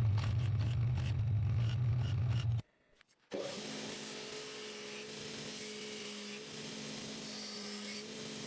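A machine running with a steady low hum and scattered clicks that cuts off about two and a half seconds in. After a brief silence a different steady machine hum with a rasping hiss starts up.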